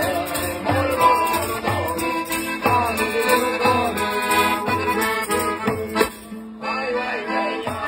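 Live Sicilian folk music: an accordion plays held chords over a steady jingling tambourine beat and a strummed guitar, with a man's voice singing the tune. The music thins out briefly about six seconds in.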